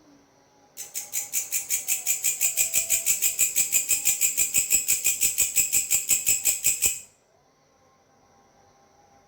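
A singing grasshopper (belalang) calling: a high-pitched, rapidly pulsed chirping at about six or seven pulses a second. It swells up over its first second, runs for about six seconds, then stops abruptly.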